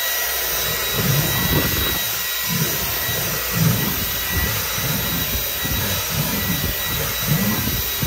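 Dyson V10 Animal cordless vacuum running steadily with a high whine. Its combination tool, brush retracted, is dragged back and forth over car floor carpet, giving uneven low rumbles under the suction noise.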